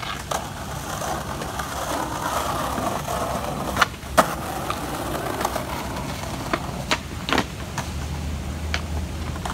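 Skateboard wheels rolling on concrete, then two sharp clacks of the board about half a second apart as a trick is popped and landed on a ledge. A few lighter clacks of board and wheels follow.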